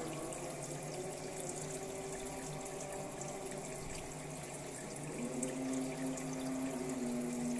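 Tap water running steadily into a kitchen sink; a low steady hum comes in about five seconds in.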